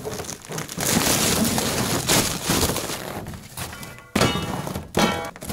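Snow being cleared off and out of a trailer: a snow-laden tarp sliding and snow crunching, then two short scraping strokes of a shovel in the trailer bed about four and five seconds in.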